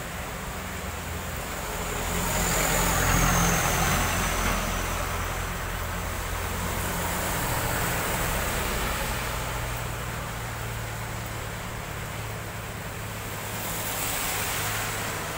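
Road traffic passing on a wet road: tyres hiss on the wet asphalt and engines rumble as cars, motorbikes and a truck go by. The loudest pass comes a few seconds in, with another swell near the end.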